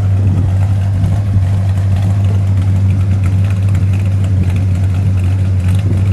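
A 1969 Dodge Charger R/T's 440 Magnum V8 idling steadily, a smooth, even low rumble with no revving.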